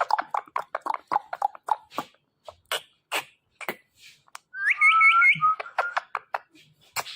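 Indian ringneck parrot chattering in quick clicks and short chirps, then giving a whistled call about halfway through: a rising glide ending in three quick hooked notes, like its mimicked 'meow'.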